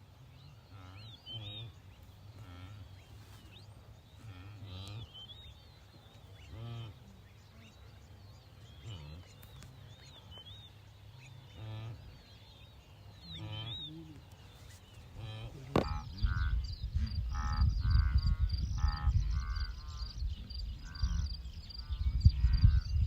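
Animal calls repeated in short series over a low rumble. They are faint and scattered at first; from about two-thirds of the way in, louder calls come in a quick run while the rumble grows.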